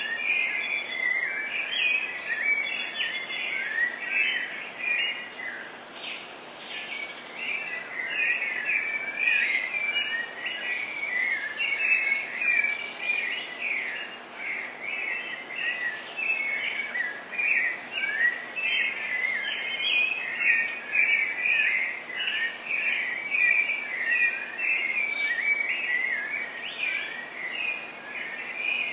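Dense chorus of birds chirping continuously: many short, quick sliding notes overlapping one another over a faint steady hiss.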